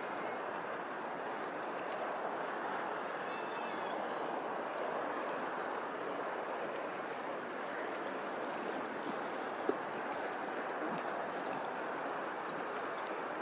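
Steady rushing water noise, like a stream, with a few faint high chirps.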